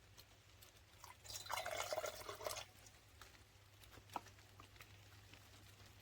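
Liquid pouring into a container for about a second and a half, followed by a few faint clicks and one sharper tick.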